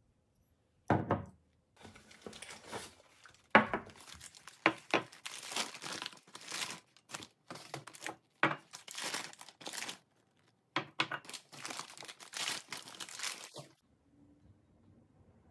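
Glossy printed flyer paper crumpling and crinkling as glass dishes are unwrapped from it, with two dull knocks, about one and three and a half seconds in. The rustling stops shortly before the end.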